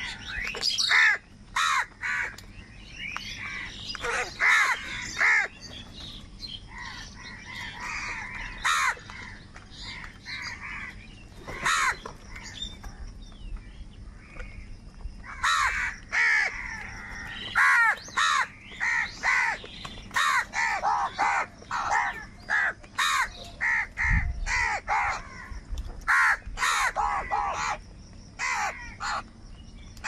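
A flock of house crows cawing, many short harsh calls overlapping with hardly a pause.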